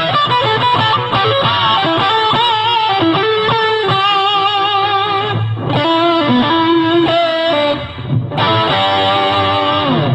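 Electric guitar played through a RamsHead Big Muff-style fuzz with reverb: sustained single-note lead lines with wavering pitch. Near the end a long held note slides down in pitch.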